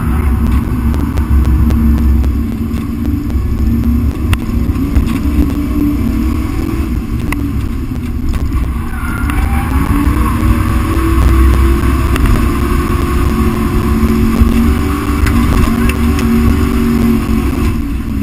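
Drift car's engine heard from inside the cabin, running hard with its pitch rising and falling as it revs.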